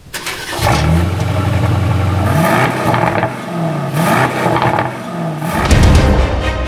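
Aston Martin DBX's AMG 4.0-litre twin-turbo V8, on its standard (non-sport) exhaust, revved while stationary: several quick throttle blips, its note rising and falling each time over a steady low rumble.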